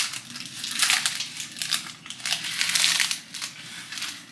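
Plastic snack wrapper of a wafer bar crinkling as it is opened, in irregular bursts, loudest about a second in and again near three seconds.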